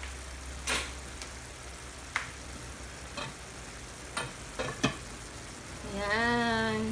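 A pan of igado, pork and liver stewed with carrots and vegetables, simmering in its sauce, with a handful of sharp pops and crackles over a steady low hum.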